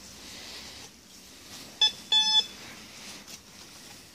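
Teknetics Eurotek Pro metal detector signalling a metal target under its coil: a short beep, then a slightly longer one just after. Faint rustling underneath.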